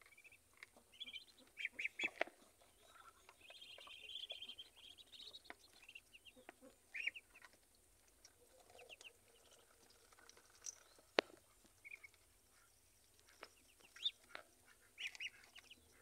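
Ducklings peeping in short, scattered high chirps while feeding, with a few sharp clicks, the loudest about eleven seconds in.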